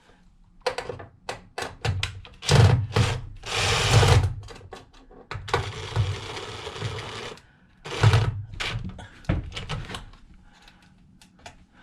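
Hand work on a 12-volt DC fuse block as a wire is fitted into its terminal: a string of clicks, taps and scrapes, with a steady rustling hiss lasting about two seconds in the middle.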